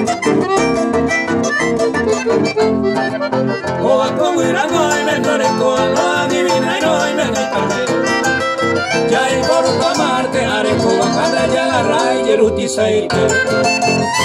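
Live band playing an instrumental passage on piano accordion, harp, acoustic guitar and electric bass, amplified through a PA, with the accordion carrying the melody over the plucked harp and strummed guitar.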